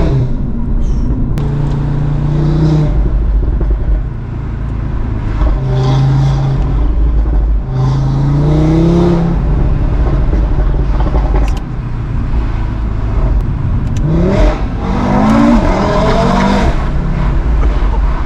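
Audi RS3's 2.5-litre turbocharged five-cylinder (DAZA) engine pulling hard under full acceleration. Its pitch climbs and drops again several times as it runs up through the gears, with the busiest run of revving near the end.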